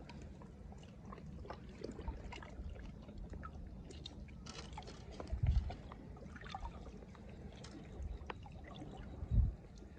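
Sea water lapping and trickling, with scattered small ticks and two dull thumps, one about halfway and one near the end.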